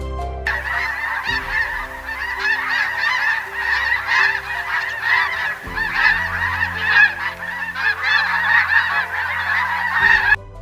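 A large flock of birds calling in a dense, overlapping chorus of honk-like calls over soft background music. The calls start about half a second in and cut off abruptly near the end.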